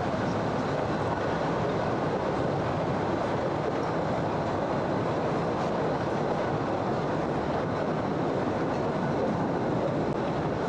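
Postojna Cave tourist train rolling steadily along its track, a continuous even rumble of wheels and carriages.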